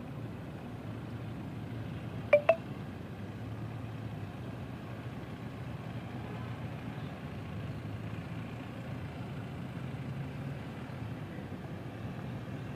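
Steady low rumble of vehicle engines, with a quick double beep about two and a half seconds in.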